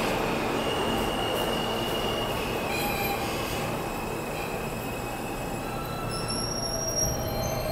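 R160-series New York City Subway train running through an underground station, its wheels squealing on the rails in several steady high-pitched tones over a rumble that slowly fades. There is a brief knock near the end.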